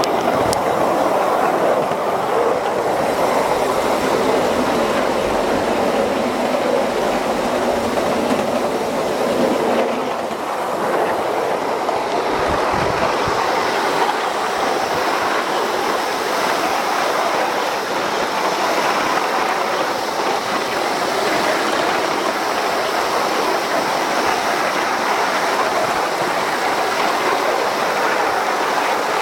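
Coal-fired ride-on miniature live steam train running along its track: a steady rolling clatter of wheels on rails.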